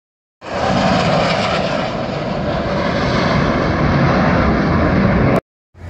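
Jet engines of a four-ship formation of US Navy Blue Angels F/A-18 Hornets flying past, a steady loud jet noise. It starts about half a second in and cuts off abruptly near the end.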